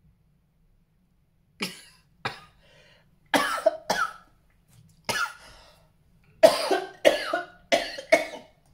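A man coughing in a fit of about nine short, sharp coughs in quick groups, starting about a second and a half in. The coughing is set off by a nasal swab for a COVID self-test irritating the nose and back of the throat.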